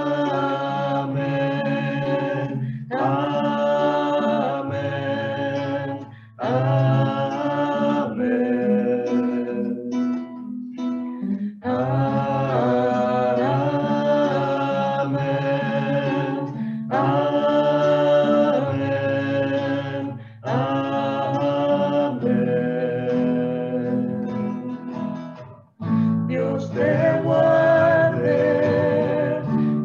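Voices singing a slow Spanish blessing song in phrases, accompanied by a strummed guitar, with short breaths between the lines.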